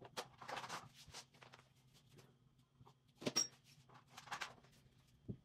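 Faint, scattered clicks and light rustling of small hand tools being handled and searched through, with a few sharper clicks, the clearest about three seconds in and just before the end.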